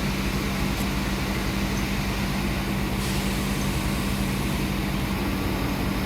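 Steady machinery hum with a strong, constant low tone over an even mechanical noise, unchanging throughout.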